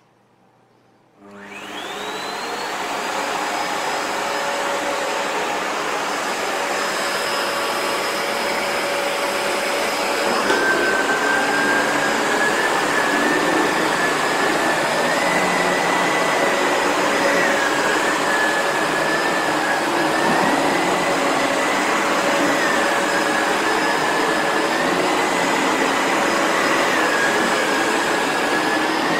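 Sebo Felix vacuum cleaner switched on at full power in handheld mode: the motor spins up about a second in with a rising whine, then runs steadily. From about ten seconds in a second whistling tone joins and wavers up and down as the nozzle works the carpet.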